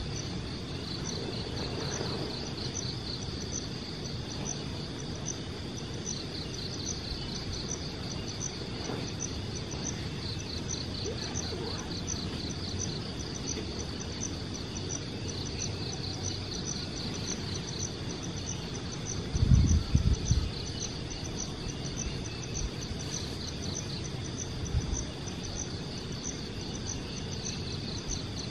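Insects chirping in a steady high rhythmic pulse over a low background hiss. About two-thirds of the way through come a short cluster of low thumps, the loudest sound, and another brief thump a few seconds later.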